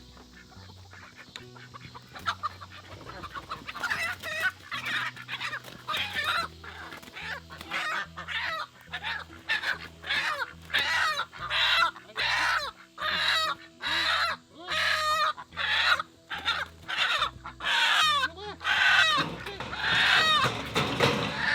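Chickens calling loudly over and over, starting a few seconds in and coming about once or twice a second.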